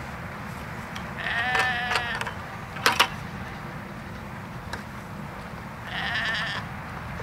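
Sheep bleating twice, a wavering call of about a second and then a shorter one near the end. Between them come two sharp knocks close together, the loudest sounds.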